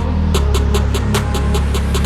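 Background music with a fast, steady beat of sharp ticks over a heavy, held bass line.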